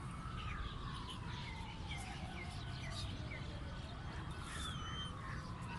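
Outdoor ambience: small birds chirping, over a steady low rumble. A long, slowly falling tone sounds twice, once at the start and again about halfway through.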